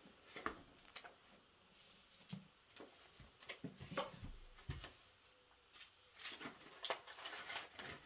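Faint, scattered clicks and soft knocks in a quiet small room, a dozen or so at irregular intervals.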